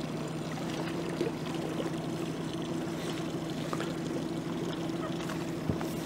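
Small boat's outboard motor running steadily at low speed, an even low hum, with a faint wash of water.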